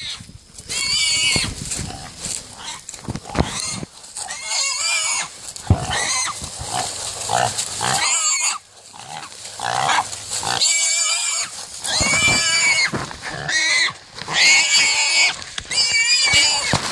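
A small hog squealing, high and shrill, in a rapid string of repeated squeals while catch dogs hold it.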